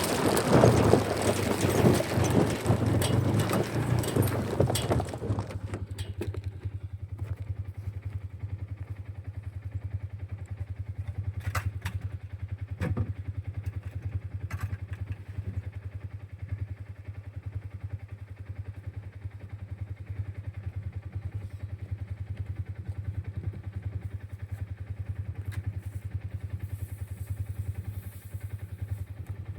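An engine running steadily with a low, even hum, likely a farm vehicle such as a tractor or utility vehicle. For the first five seconds or so it is masked by a louder rushing noise, and a few clattering knocks come through in the middle.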